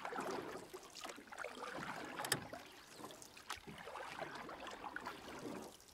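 Faint ambience of wind and water around a small boat on a river, with scattered small knocks and one sharper click a little over two seconds in.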